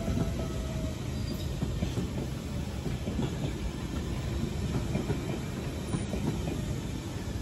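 London Underground 1992-stock tube train running along the platform: a steady low rumble with light wheel clatter over the rail joints.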